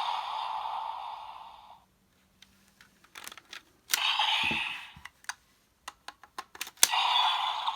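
Electronic sound effects from a Bandai DX Kamen Rider Geats toy's small speaker, fading out about two seconds in. Then come a run of sharp plastic clicks as the toy is handled, a short burst of sound effect about four seconds in, and more clicks. The toy's sound effect starts up again near the end.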